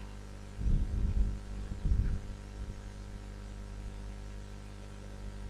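Steady low electrical mains hum, with a few soft low bumps about one and two seconds in.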